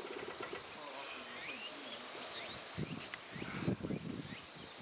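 A steady, high-pitched insect chorus, with short chirps repeating about every two-thirds of a second.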